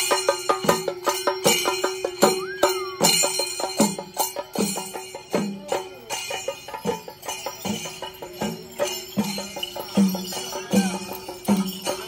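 Kerala temple procession drumming: chenda drums struck with sticks in a fast, steady rhythm, with a jingling metallic ring and a sustained tone beneath.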